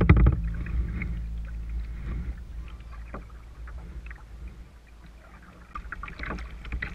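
Kayak being paddled on open water: faint splashes and drips from paddle strokes and water along the hull over a low steady rumble, growing fainter through the middle.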